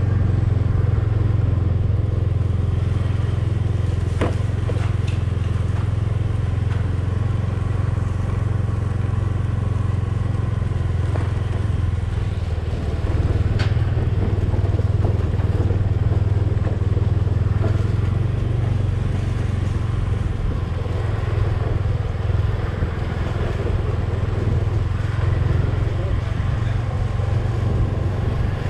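Vehicle engine running steadily at low speed, a constant low hum, with two sharp clicks about four and fourteen seconds in.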